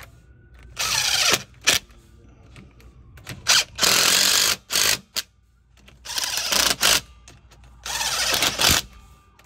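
DeWalt 20V XR cordless impact driver running in four short bursts about two seconds apart, snugging the differential pan bolts on an EZGO TXT rear end. It is set low because the bolts thread into aluminum and could break.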